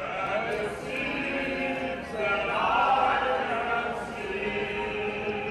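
Singing over a stadium public-address system, long held notes with vibrato, heard from the grandstand with crowd noise beneath.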